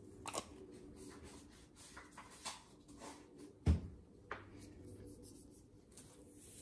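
Seasoning shaken from an Adobo shaker bottle over sliced beef in a stainless steel bowl: a scatter of light taps and clicks, with one dull knock, the loudest sound, a little past halfway.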